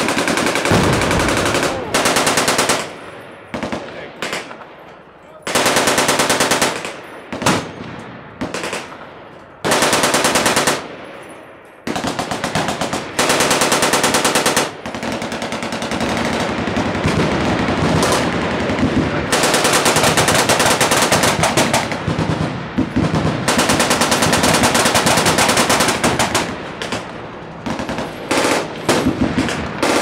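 Fully automatic machine guns firing long, rapid bursts from a firing line, several guns overlapping, with brief lulls between bursts.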